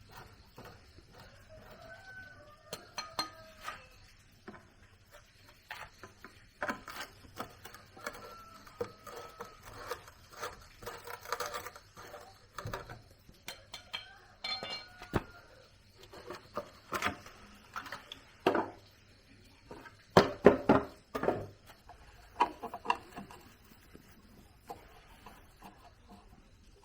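Scattered metallic clinks and knocks, as of hand tools handled against metal parts, with a cluster of louder knocks about twenty seconds in. Chickens cluck briefly in between.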